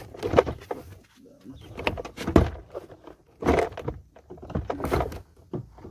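Knocks and plastic rattling as a car's inside door trim panel is worked loose and pulled off its clips, in four bursts over a few seconds.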